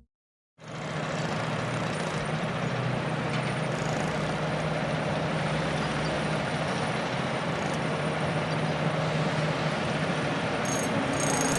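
Construction site ambience: a truck engine running steadily under a dense wash of site noise, starting about half a second in. Some higher steady tones join near the end.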